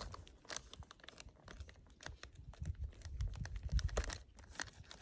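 A plastic food packet crinkling and rustling as it is handled, with many short sharp crackles.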